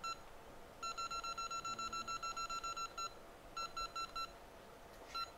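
Short, high electronic beeps in quick succession, about eight a second. A run of roughly twenty is followed by a shorter run of about five and a few more near the end.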